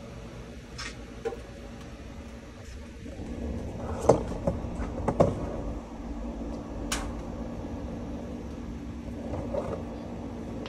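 Steady hum of a Blackstone griddle's built-in air fryers running. A few loud clunks and knocks come about four to five seconds in, with a sharp click near seven seconds.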